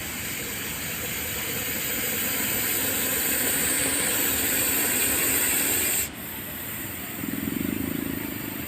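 Russell's viper hissing: one long, loud hiss of about six seconds that cuts off suddenly. A low hum follows near the end.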